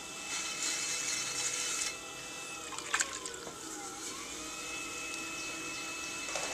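Electric pottery wheel motor whining steadily, with a hiss over it for the first couple of seconds. About three seconds in there is a click, and the whine drops in pitch and then climbs back to its steady note.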